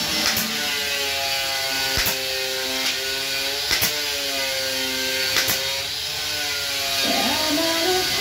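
Background music: held, gently bending tones with a sharp click about every second and three-quarters, and a stepping run of rising notes near the end.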